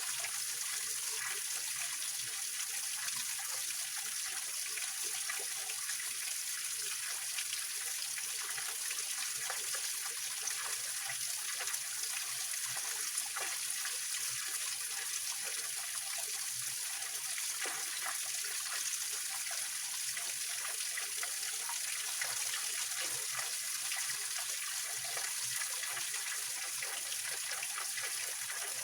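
Small mountain-spring waterfall and stream running over rocks: a steady splashing rush of water.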